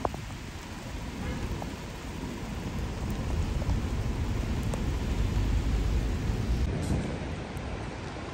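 Steady heavy rain. A low rumble builds from about three seconds in, peaks near the middle and eases off toward the end.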